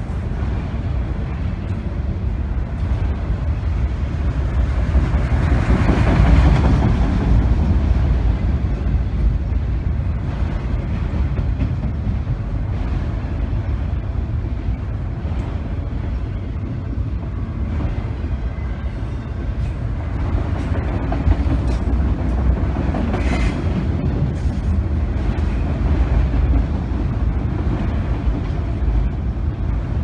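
Freight train of autorack cars rolling past: a steady rumble of steel wheels on rail, swelling louder about six seconds in and again about twenty-three seconds in.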